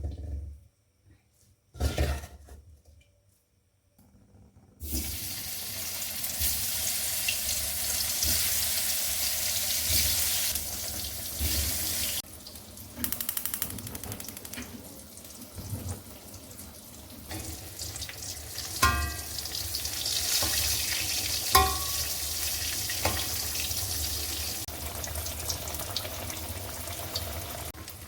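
Kitchen tap water running into a sink, a steady hiss that starts about five seconds in after a couple of knocks, with dishes or utensils clinking now and then.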